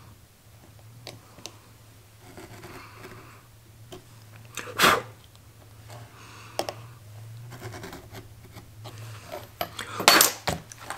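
Adjustable stitch groover cutting a stitch groove into the leather of a knife sheath, guided along a steel rule: several short scraping strokes, with one sharp knock about five seconds in and a few clicks near the end. A low steady hum runs underneath.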